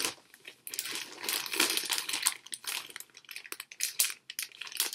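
Phone cases in plastic packaging being handled: crinkling plastic mixed with a quick run of small clicks and taps.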